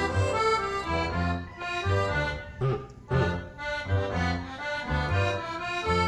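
Background music: a held, pitched melody over a bass note that repeats about twice a second.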